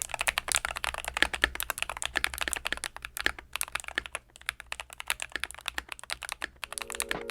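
Typing on a Keychron K10 Pro mechanical keyboard modded with Glorious Panda and Durock T1 tactile switches: rapid, continuous keystrokes that thin out briefly about four seconds in. Music starts near the end.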